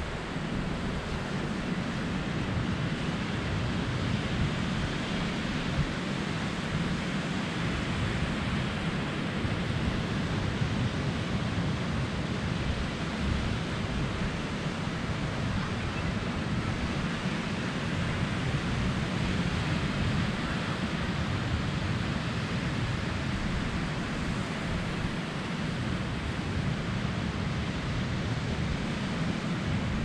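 Surf breaking on a sandy beach, a steady wash of waves, with wind buffeting the microphone as a fluttering low rumble.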